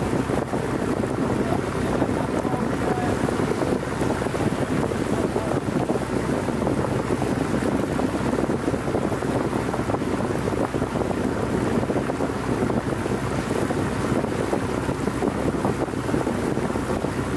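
The engine of an old wooden fishing boat running steadily under way, a low even drone, with wind on the microphone.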